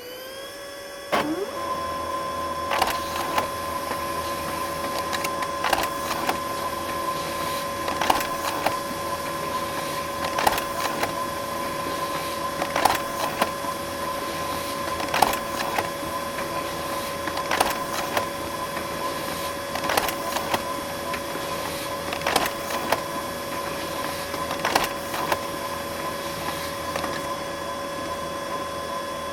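Laser printer printing a multi-page job: a steady motor whine that gets louder about a second in, with a click about every two and a half seconds as each sheet goes through.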